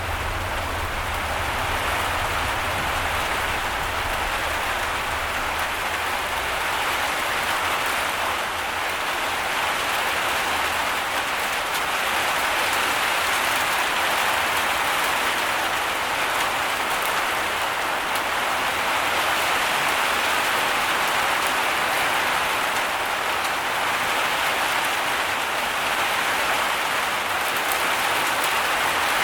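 Heavy rain pouring steadily, a dense even hiss of drops on surfaces. A low rumble underneath fades out over the first several seconds.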